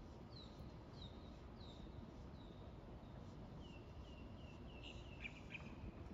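Faint bird calls: a series of short, high notes slurring downward, about one every half second, then a quicker run of slightly lower notes and a few sharper notes near the end, over a steady low background hiss.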